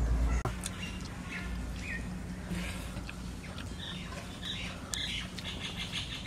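Birds chirping: short scattered calls and quick rising chirps, then a fast run of repeated high chirps over the last couple of seconds, over a low steady hum.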